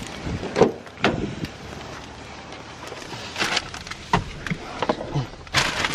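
Scattered knocks and clicks of a car door being opened and someone climbing into the car, with a longer rustling clatter near the end.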